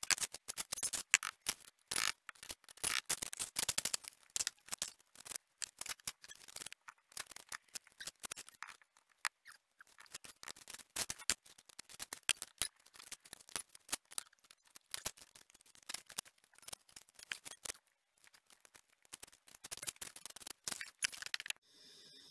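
Hand masonry work on a brick surround: a dense, irregular run of short scrapes and clicks as bricks and mortar are handled and worked. It stops abruptly near the end.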